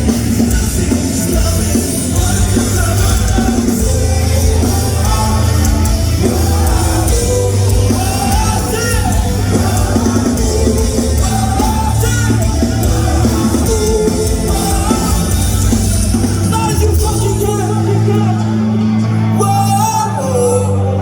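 Live rock band playing loudly with sung vocals, heard through a large hall. About three-quarters of the way through the deep bass and drums drop out, leaving held chords.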